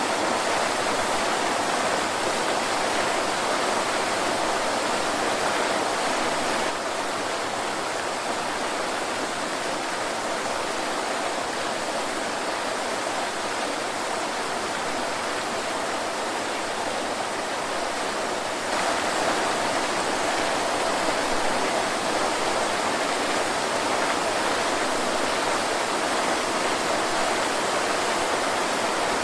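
Waterfall: a steady rush of falling water, dipping slightly quieter for about twelve seconds in the middle.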